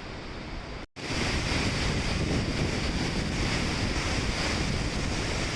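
Waterfall in high flow: a steady rush of falling water mixed with spray-laden wind buffeting the microphone. It cuts out briefly about a second in, then comes back much louder and stays even.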